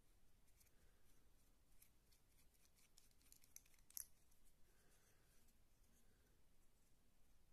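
Near silence with faint clicks and rubbing from hands handling small pipe parts as a threaded metal pick is drawn out of a black pipe piece. One sharper click comes about four seconds in.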